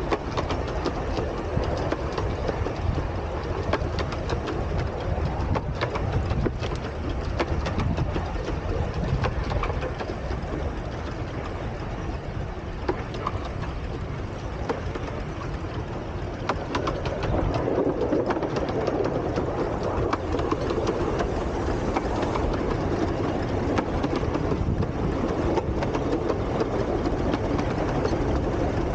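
Double-headed 12¼-inch-gauge miniature steam train running along the line: a steady rumble from the locomotives and coaches with many small clicks from the wheels on the track. It grows louder about two-thirds of the way through as the leading locomotive comes closer.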